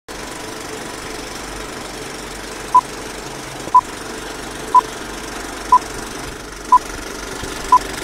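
Vintage film countdown-leader sound effect: a steady projector-style rattle and hiss with a short high beep once a second, six beeps starting near three seconds in.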